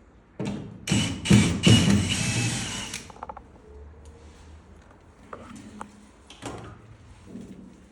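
Handling noise from lamp parts and packing: a loud rustling and scraping lasting about two and a half seconds, then a few light clicks and knocks.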